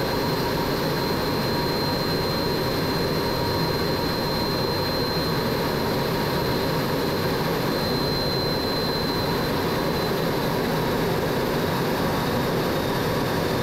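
MiG-17 turbojet engine running steadily in flight out of afterburner, heard from the cockpit as a constant rush with a thin high whine that weakens about ten seconds in.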